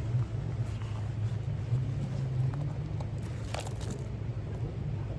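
Steady low rumble of a moving car, heard from inside, with a few faint clicks about three and a half seconds in.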